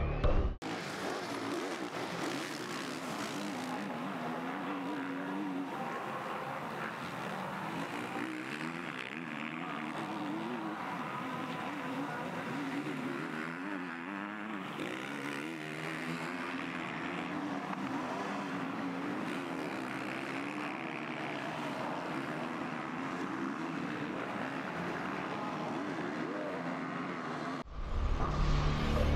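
Motocross bike engines revving on a dirt track, their pitch rising and falling with the throttle. The sound cuts off sharply near the end.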